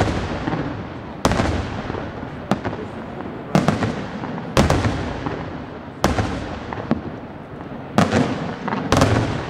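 Aerial firework shells bursting, about seven sharp bangs at uneven gaps of roughly one to two seconds, each trailing off into a rolling echo.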